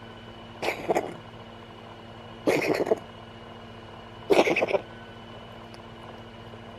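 Cat coughing three times, short wheezy chesty hacks about two seconds apart, each lasting about half a second.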